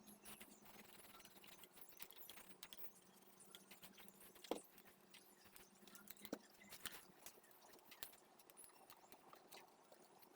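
Faint scattered clicks and light taps of plastic vacuum parts being handled, the sharpest clicks about four and a half and six and a half seconds in.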